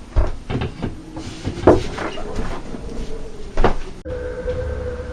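A series of heavy knocks and thumps. About four seconds in, the sound cuts off abruptly and gives way to a steady, even-pitched hum.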